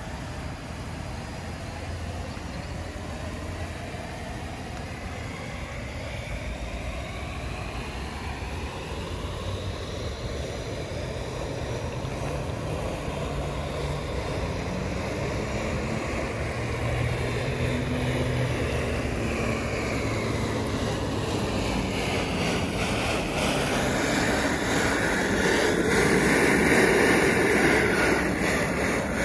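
Fountain water running down a granite cone into a shallow pool and churning from a low bubbling jet: a steady splash and rush that swells louder toward the end, heard close at the pool's edge. A passing engine drone, its pitch slowly bending, runs under the water in the middle.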